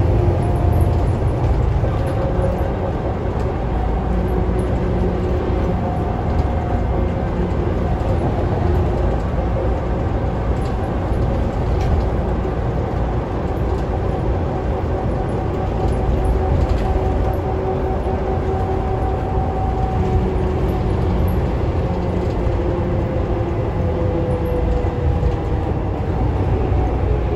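Scania K320UA articulated city bus on the move, heard from inside the passenger cabin: a steady low engine and road drone with whines that rise and fall in pitch, and faint interior rattles.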